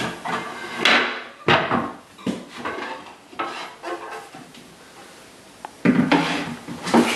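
Solid cherry desk-base parts being handled on a hardwood floor: sharp wooden knocks about a second in, quieter handling through the middle, then louder knocking and squeaky scraping of wood against the floor near the end.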